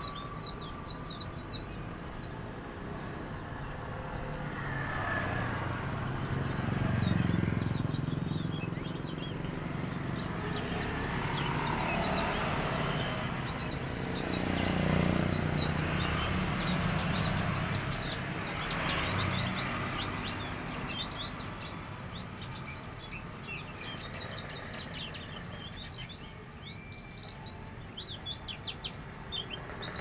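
A caged white-eye (pleci), a wild-caught bird just starting to sing, gives bursts of fast, high twittering chirps several times. A low rumble of passing traffic swells and fades underneath.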